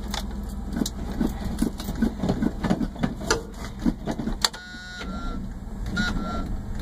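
A running engine hums steadily, with irregular clicks over it. About two-thirds of the way in the hum drops and a dashboard warning buzzer sounds in two short pulses during the failed attempt to jump-start the old Chevy C10 pickup.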